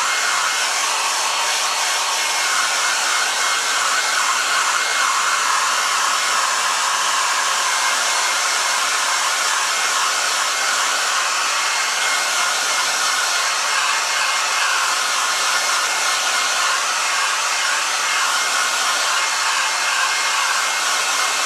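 Hand-held electric hair dryer running steadily, a constant rush of blown air with a faint steady whine, as it dries a squirrel's fur.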